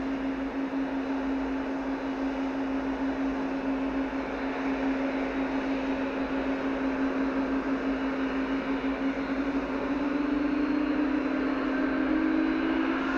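Boeing 777-367's Rolls-Royce Trent turbofan engines running with a steady whine. About ten seconds in, the pitch starts to rise as the engines spool up for the takeoff roll.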